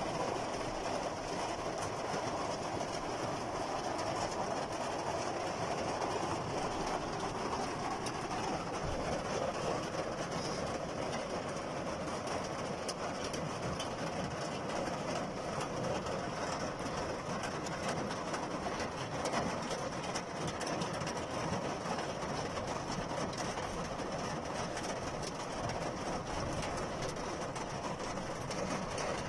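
Heavy rain falling steadily on a car's roof and windows, heard from inside the car.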